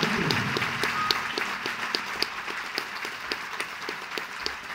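Audience applauding, with one person's claps close by standing out sharply a few times a second.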